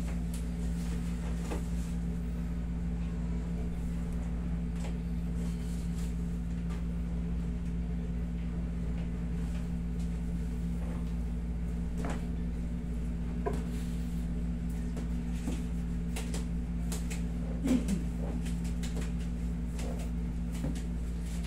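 Steady low hum of a window air conditioner, with scattered light clicks and knocks from hands working on a person on a padded massage table, and one brief louder sound about three-quarters of the way through.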